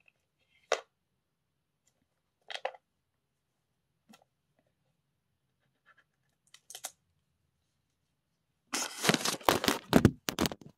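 Utility knife scratching and slitting the plastic shrink wrap on an album, in a few short crinkly strokes spaced seconds apart. Near the end comes a loud burst of clattering and scraping as the phone doing the recording topples over.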